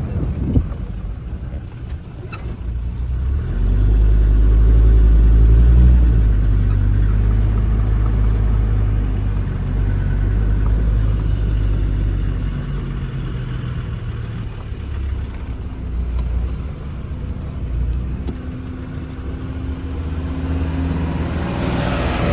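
A 4x4 jeep driving, its engine running under a heavy low rumble of road and wind noise. The rumble is loudest about four to six seconds in, and the engine note rises and falls a little.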